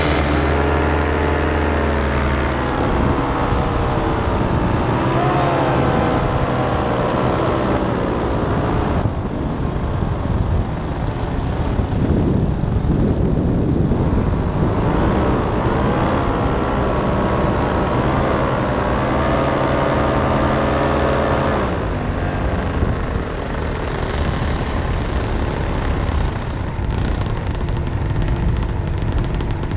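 Paramotor engine running, its pitch rising and falling with the throttle, then winding down and cutting out about 21 seconds in, leaving a steady rushing noise.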